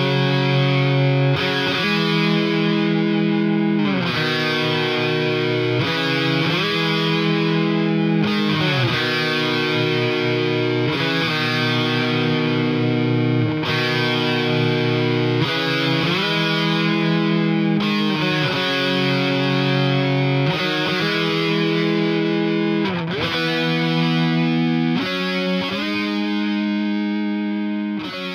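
Instrumental break of a rock song: distorted electric guitar playing long held notes, sliding from one note to the next about every two seconds.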